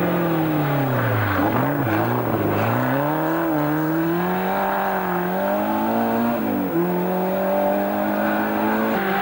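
Rally car engine under hard use. About a second in the pitch drops, with quick blips as it is braked and downshifted for a bend. It then climbs steadily under full throttle, drops sharply at an upshift near the seven-second mark, and climbs again as the car accelerates away.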